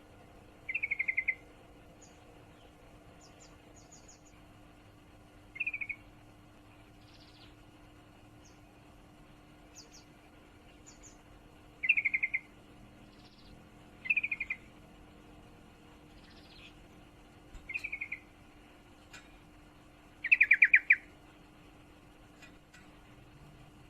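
Female yellow-vented bulbul (trucukan) giving short rattling chatter calls, the breeding female's call to a male: six quick bursts several seconds apart, the one near the end longest and loudest, with faint higher chirps between them.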